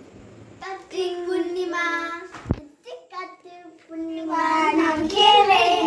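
A young girl's voice singing in high, held notes, in short phrases with a brief break and a single sharp knock about two and a half seconds in.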